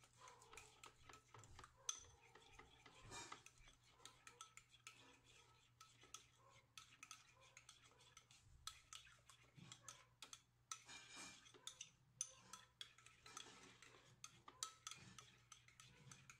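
Metal spoon stirring a thick mayonnaise-and-ketchup dressing in a ceramic bowl. The spoon gives an irregular run of faint clicks and scrapes against the bowl's sides.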